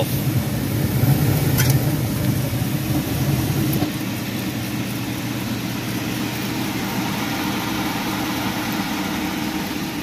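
Gas furnace running with a steady motor hum. About four seconds in, the sound drops a little and evens out as the burner shuts down because its flame sensor has been disconnected, while a motor hum runs on.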